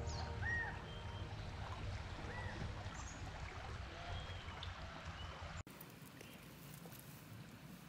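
Small mountain stream flowing, with short bird chirps now and then. About five and a half seconds in the sound cuts abruptly to a quieter water hiss.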